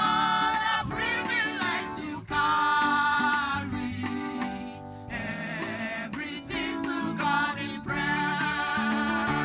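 Church worship team singing gospel praise on microphones, with electronic keyboard accompaniment. The sung phrases break off briefly about two, five and eight seconds in.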